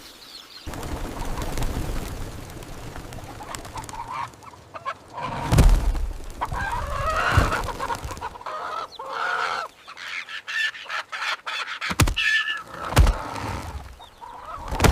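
Birds clucking and calling in wavering bursts, with several sharp knocks between them.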